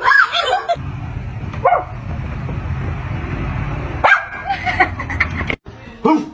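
A dog giving short pitched barks, yips and whines, with a cluster of them about four to five seconds in.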